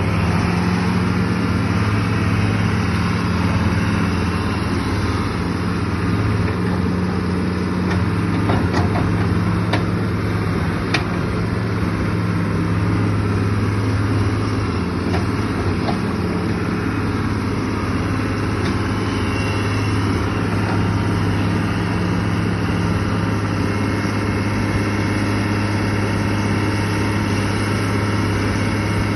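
Caterpillar excavator's diesel engine running steadily at a constant speed, with a few light clicks about nine to eleven seconds in.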